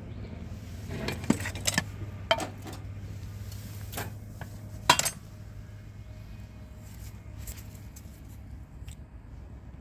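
Hard metal objects clinking and knocking together as they are handled, about eight sharp clinks in the first five seconds, the loudest about five seconds in, then only a few faint ones. A steady low hum runs underneath.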